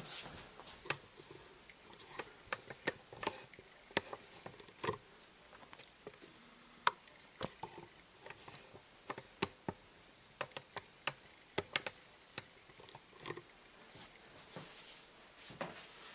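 Irregular light clicks and taps, a few to several a second with pauses between them, some sharper than others.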